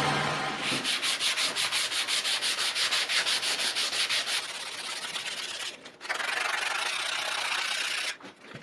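Abrasive rubbing on the forged axe head, first in fast back-and-forth strokes of about seven a second, then as a steadier scrape broken twice by short pauses; a finishing step in making the axe.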